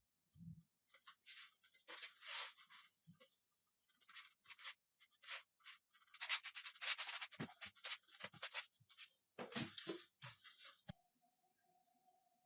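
Hand-sanding foam: a series of short, scratchy rubbing strokes, thickest in the middle and stopping about eleven seconds in, with a few soft knocks. A faint steady hum follows near the end.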